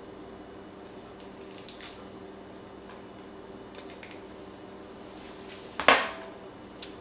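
A ripe peach being pulled apart by hand, making soft wet squishing and faint clicks as the flesh is worked off the pit. About six seconds in there is a single sharp knock as peach pieces are dropped into a blender jar. A faint steady hum sits underneath.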